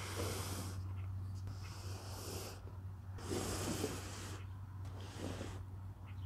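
A small child straining to tug a heavy tent carry bag: four short bursts of huffing breath over a steady low hum.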